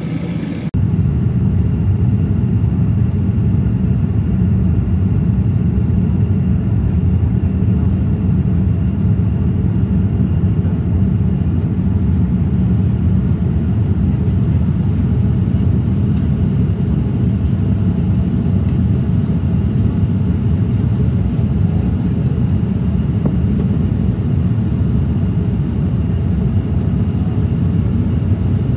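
Water from a galley tap running into a paper cup for under a second, then the steady low rumble of a Boeing 787-10's cabin in flight, engine and airflow noise heard from a seat by the window.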